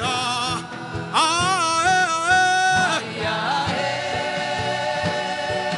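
Gospel worship music: a voice sings long, held notes with vibrato over sustained instrumental backing and a light steady beat. The singing stops about three seconds in, leaving the backing.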